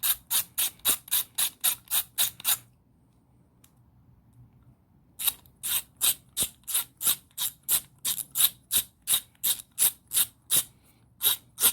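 Milwaukee 3/8" drive, 90-tooth ratchet being swung back and forth, a steady run of clicking strokes about four a second. The strokes pause for a couple of seconds near the middle, then start again. The gear and pawl are freshly brushed and relubed, and the ratchet runs without binding.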